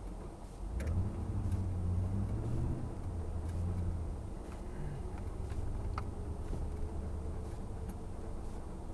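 A 1990 Ford F-150's 5.0-litre (302) V8, heard from inside the cab, picking up revs about a second in as the truck accelerates away, then running on steadily.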